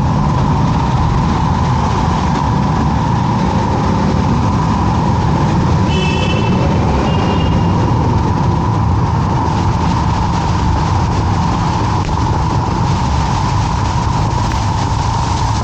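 Steady rush of wind over a moving motorcycle at road speed, heard from on the bike, with the KTM 390 Adventure underneath it. A brief high tone sounds about six seconds in.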